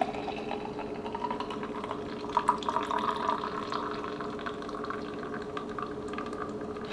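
Cocktail pouring in a thin, steady trickle from a metal cocktail shaker into a glass champagne flute as the glass fills.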